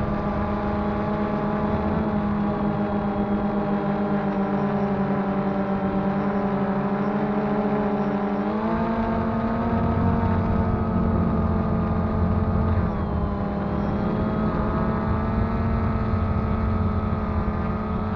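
DJI Phantom 2 quadcopter's electric motors and propellers whining steadily in flight, heard close up. The pitch rises about eight and a half seconds in and dips briefly near thirteen seconds as the motors change speed.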